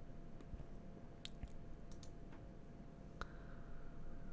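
Several faint, sharp computer mouse clicks, spaced irregularly, one of them opening a right-click menu.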